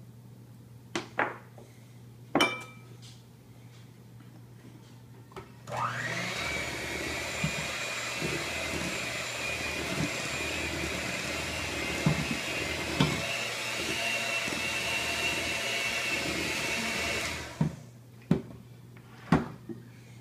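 Electric hand mixer beating chocolate cupcake batter in a glass mixing bowl: its motor starts with a rising whine about six seconds in, runs steadily for about twelve seconds, then stops. A couple of sharp clinks come before it and a few knocks after it stops.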